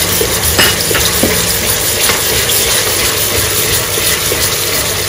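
Onion, grated tomato and green chillies sizzling in hot mustard oil in an aluminium pot as a wooden spoon stirs them: a steady frying hiss, with a couple of light spoon knocks in the first second or so.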